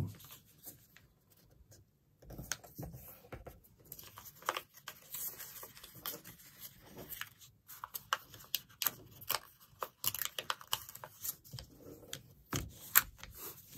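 A sheet of letter-size paper being folded and creased by hand: a run of short rustles, scrapes and crinkles as fingers fold the edge over and press the crease flat, starting about two seconds in.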